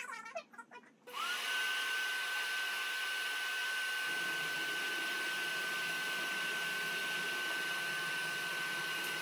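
Vacuum cleaner motor switching on about a second in, its whine rising quickly and then holding at one steady high pitch over a rushing of air.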